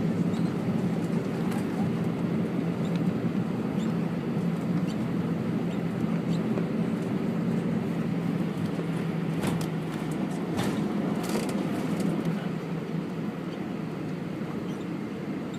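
Cabin noise inside an Airbus A319 on the ground after landing: the jet engines and airflow make a steady low hum, easing off slightly toward the end. A few sharp clicks or knocks come around the middle.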